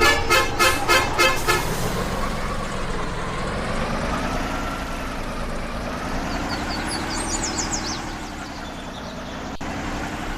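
A rapid series of horn-like beeps, about four a second, stops about a second and a half in. After that a vehicle engine runs on, its pitch slowly rising and falling with the throttle. There is a single sharp click near the end.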